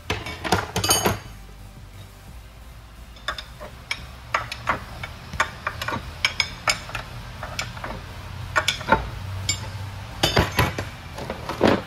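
Steel hand tools clinking, tapping and knocking against the steel parts of a truck transmission being taken apart. The strikes come irregularly, with a quick cluster at the start and a louder run of clanks near the end, over a steady low shop hum.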